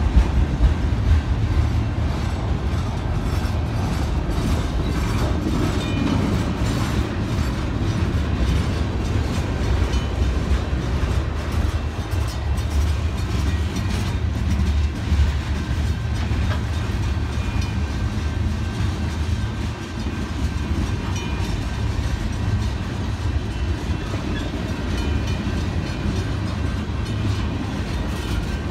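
Cars of a very slow CSX freight train rolling past close by: a steady, low-pitched sound of wheels on rail that keeps an even level throughout.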